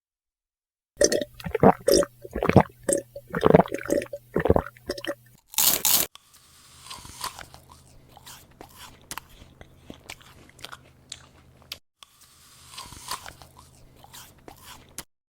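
Crunching and chewing, loud and dense for the first few seconds, with a sharp burst about six seconds in, then fainter crackly chewing with a short break near the end.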